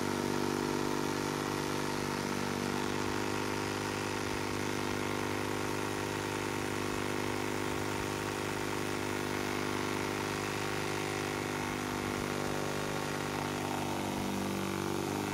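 A 12 V diaphragm pump runs steadily with a buzzing hum, feeding a line of mist nozzles whose fine spray adds a steady hiss.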